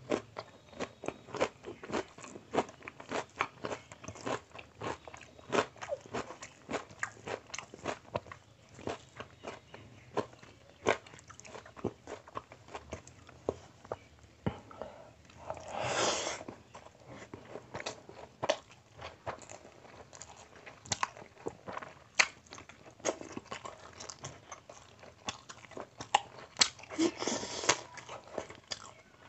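Close-miked chewing of curry and rice eaten by hand: many short wet mouth clicks and smacks, with a longer noisy stretch about halfway through and another near the end.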